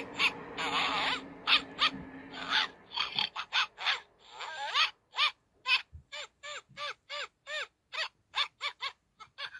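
Oriental kittens mewing: a string of short, high, rising-and-falling calls, coming about two a second in the second half after a denser run of cries.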